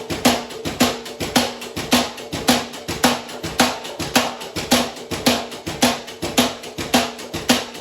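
Mechanical power hammer striking steady, rapid blows, about three to four a second, each with a short metallic ring.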